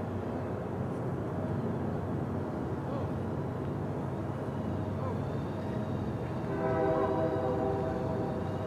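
Union Pacific freight locomotive's air horn sounding a steady chord of several notes, starting about six and a half seconds in, over a steady low rumble.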